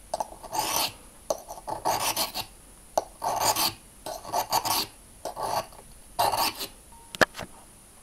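Steel pocket-knife blade rasping back and forth on the coarse 150-grit side of a wet water stone, a run of separate scraping strokes about one or two a second while the badly blunted edge is reprofiled. A single sharp click sounds about seven seconds in.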